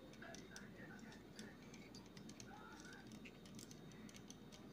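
Faint, scattered clicks of hard plastic toy parts being handled and turned: a transforming phone-robot toy being folded by hand.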